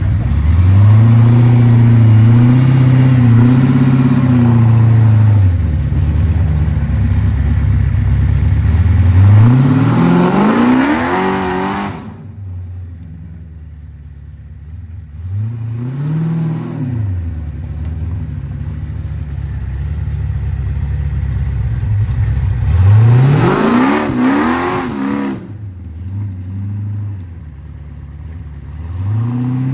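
545-cubic-inch big-block Ford V8 in a rock buggy revving hard in repeated bursts under load as it claws up a steep dirt climb, dropping back toward idle between them. The longest rev climbs steeply about ten seconds in, with a short blip near the middle and another big rev about two thirds of the way through.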